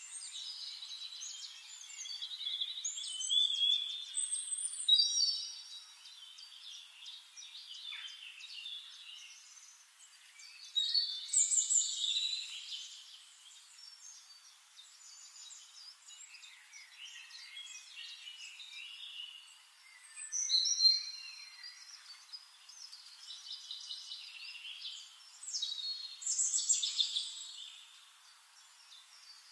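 Birdsong: high chirps and short trilling phrases, with louder bursts of song every few seconds.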